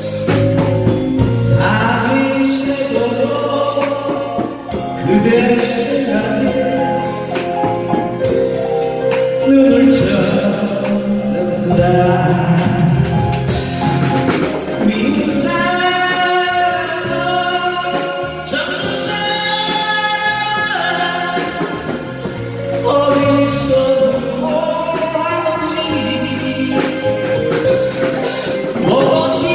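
Live band music: drum kit and keyboard accompaniment carrying a sustained lead melody.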